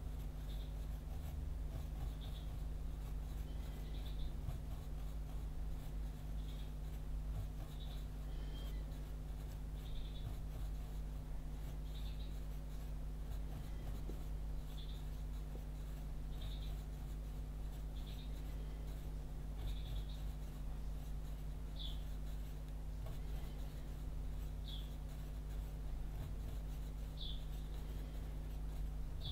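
Pencil scratching on paper in short strokes, one every second or two, as small dragon scales are sketched, over a steady low hum.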